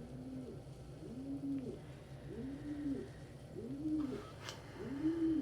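Domestic pigeon cooing over and over, about five low coos, each rising and falling in pitch, one every second and a bit. A short sharp click comes about four and a half seconds in.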